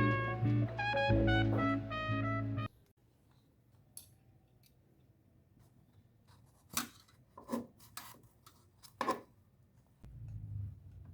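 Background music with brass, in a jazzy style, that cuts off suddenly about two and a half seconds in. Then a few scattered short clicks and knocks, with a low hum starting near the end.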